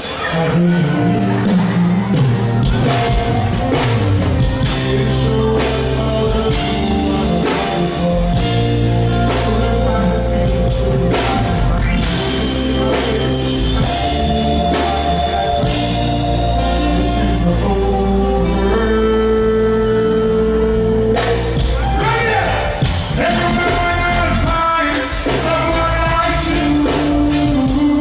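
Live band music with a voice singing over a steady drum beat.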